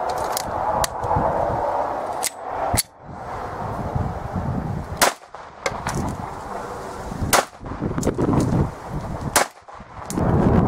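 Ekol Special 99 front-firing blank pistol firing 9mm P.A.K. blanks: several sharp single shots about two seconds apart.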